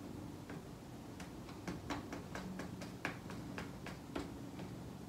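Light, irregular clicking as a squeeze bottle of liquid craft glue is run along a cardstock score line, a dozen or so ticks over about three seconds, over a faint steady hum.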